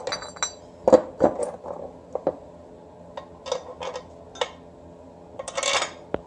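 Small metal parts clinking and tapping as they are handled against an aluminium transmission bellhousing and adapter plate: a scattered series of sharp clinks, with a short scraping sound about a second before the end.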